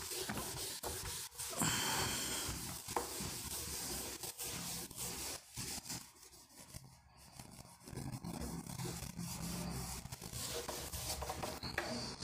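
Handwriting: a pen scratching and rubbing across a writing surface in short strokes, with small clicks and taps between them.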